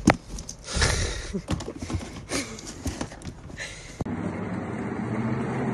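A run of scattered knocks and scuffles, the loudest a sharp one right at the start. About four seconds in, they give way to the steady low rumble of a cat exercise wheel spinning under a running cat.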